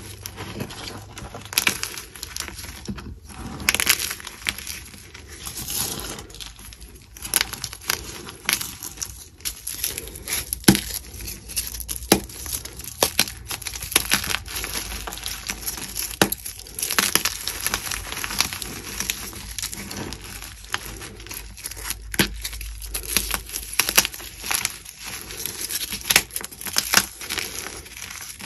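Bare hands crushing and crumbling blocks of gym chalk, some dyed, in a pile of chalk powder: a dense, irregular crunching and crackling with many small clicks as pieces break.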